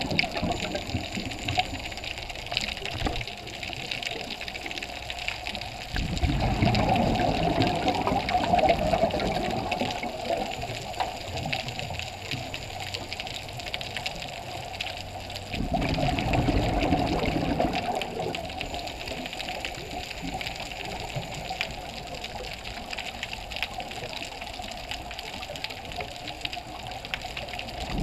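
Scuba diver's exhaled bubbles heard underwater, rushing in bursts of two to three seconds about every nine or ten seconds, with a steadier, quieter water hiss between the breaths.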